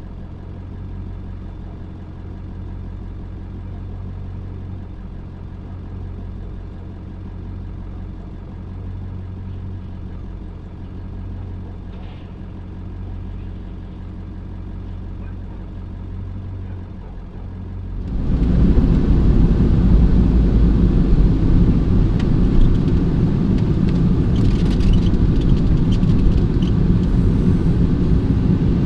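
Old Ford's engine idling steadily while it warms up after a cold start. About two-thirds of the way through, a sudden much louder low rumble takes over: the vehicle under way, with engine and road noise.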